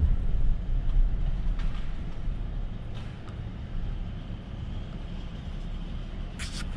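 Pickup truck driving, a steady low rumble of engine and road noise that gets quieter from about two seconds in. A brief clatter near the end.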